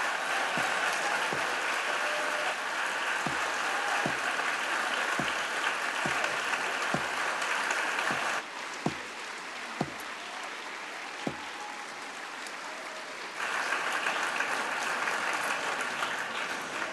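A large crowd applauding steadily in a big hall: a long standing ovation. It dips quieter from about eight to thirteen seconds in, with a few single thumps standing out, then swells again before fading near the end.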